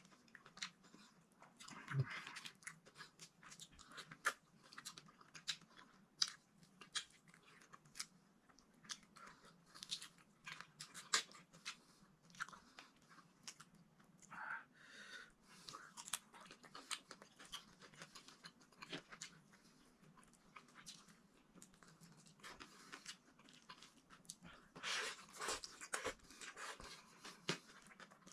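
Close-miked chewing and crunching, with many irregular short wet clicks, as a person eats cooked okra and eggplant; the chewing is busiest near the end.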